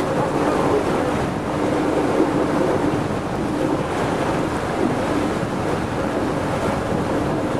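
Steady rush of water from a moving boat's wake, with wind buffeting the microphone and a low, steady hum from the boat underneath.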